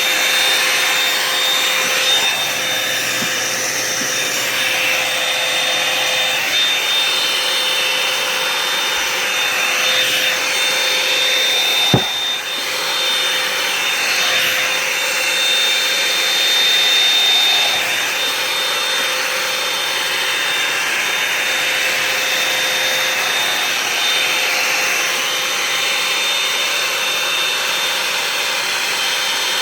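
Revlon One-Step hot-air brush dryer running steadily, a fan-and-air noise with a thin high whine, as it is worked through long hair. A single sharp knock about twelve seconds in.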